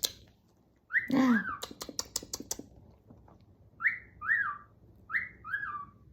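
Galah (rose-breasted cockatoo) vocalising: a falling call about a second in, a quick run of clicks, then two pairs of short two-note chirps.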